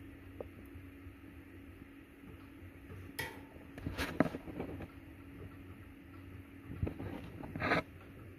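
A metal spoon scraping and knocking against a paper plate, a few short scrapes in the second half, over a steady hum.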